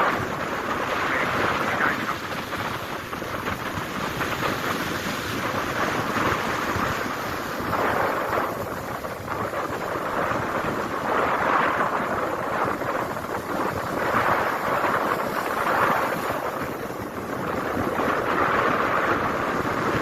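Strong wind gusting against the microphone over rough sea waves. It is a steady rush that swells and eases every few seconds.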